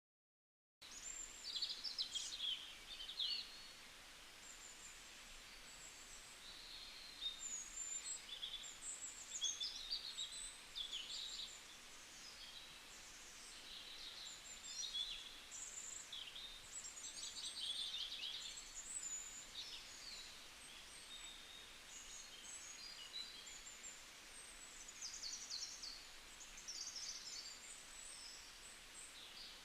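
Many small birds chirping and twittering in quick, overlapping high calls over a faint background hiss, starting about a second in.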